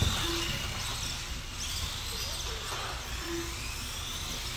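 Small brushed electric motors of mini RC off-road buggies whining as they race, the pitch gliding up and down with throttle. A single knock right at the start.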